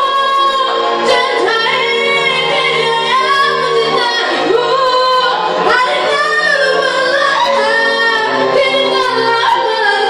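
Two women singing a song together over musical accompaniment.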